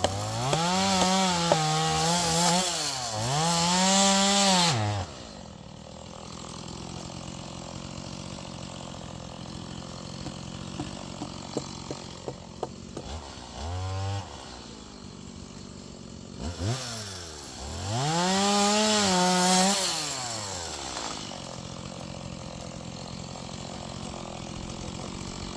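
Stihl chainsaw cutting wood at full throttle, its pitch rising and sagging under load, then dropping to idle about five seconds in. It gives a short blip of throttle, runs up for a second cut of a few seconds, and settles back to a steady idle near the end.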